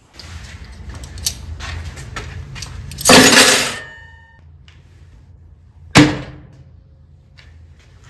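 Microwave oven humming with metal cutlery inside, crackling with sparks as the forks and knife arc. A loud burst of arcing comes about three seconds in, then a single sharp clack about six seconds in over the oven's fainter hum.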